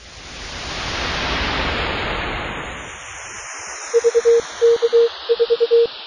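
A rushing whoosh of noise swells up and fades away over the first three seconds. Then, about four seconds in, Morse code beeps at one steady pitch begin, in groups of short and long tones: the opening letters of the call sign VK4GHZ.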